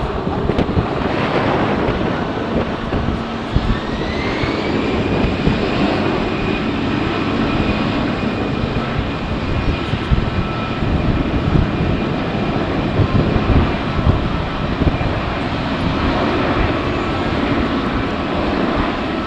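Jet airliner's engines spooling up: a whine rises about four seconds in and then holds steady over a continuous engine rumble. Strong wind buffets the microphone throughout.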